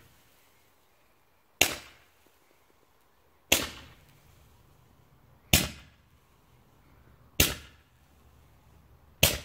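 World Class Fireworks 10-ball Roman candle firing its balls one at a time: five sharp pops about two seconds apart, each with a short fading tail.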